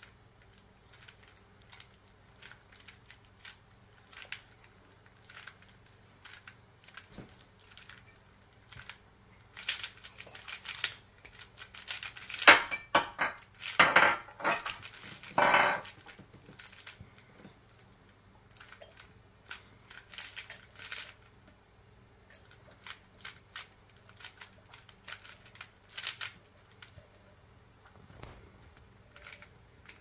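Plastic Rubik's Cube being turned by hand during a solve: quick clicks and clacks of the layers turning, with a busier, louder flurry of turns in the middle.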